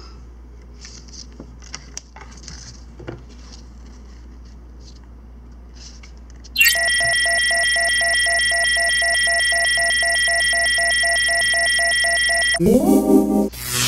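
Faint small clicks of handling, then a loud steady electronic alarm-like tone of several pitches, part of it pulsing rapidly, for about six seconds. It is followed near the end by a short rising horn blast. These are sound effects laid over the footage to cover swearing.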